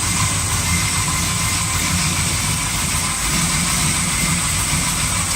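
Car engine idling steadily, running on remote start.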